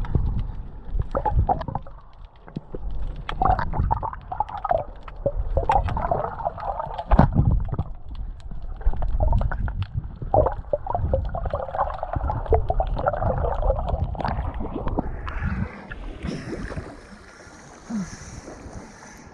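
Muffled underwater water noise from an action camera held below the surface: low rumbling, gurgling and small clicks as the water moves around it. About three-quarters of the way through the camera breaks the surface, and the sound turns to lighter, hissing splashes of surface water.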